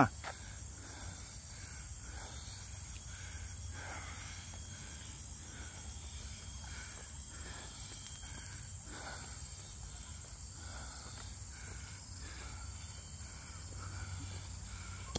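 Steady high-pitched insect drone of tropical forest, with faint footsteps on the trail.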